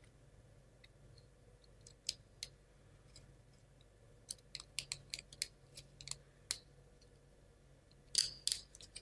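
Light clicks and taps of laser-cut plywood model parts being handled and fitted together: a few single clicks at first, a run of quicker clicks in the middle, and a couple of louder knocks near the end.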